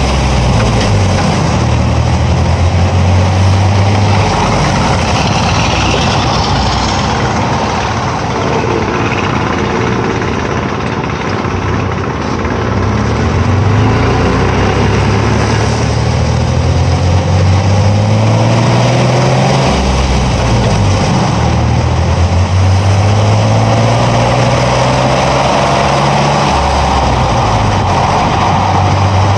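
Truck driving, heard from beneath the rear axle: a low engine drone rises in pitch several times as it accelerates, over continuous tyre and road noise.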